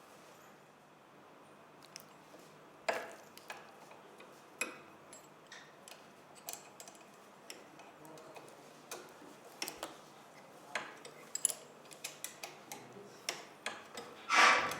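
Irregular clicks and clacks of hands unfastening and removing parts from a ventilator's casing, with a louder clatter near the end.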